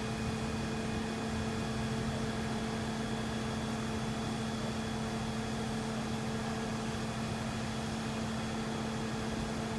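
A crane's engine running at a steady, even drone while it lifts the HVAC unit, with no revving or change in pitch.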